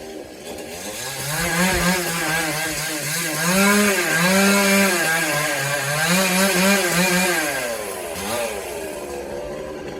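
Chainsaw engine running at high revs, its pitch rising and falling again and again as it bogs and recovers while cutting through a coconut palm trunk.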